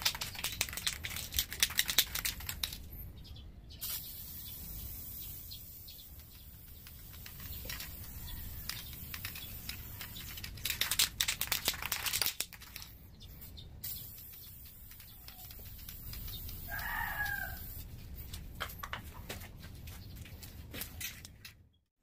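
Bursts of crackling and rustling, loudest near the start and again around the middle, with one short bird call about three quarters of the way in.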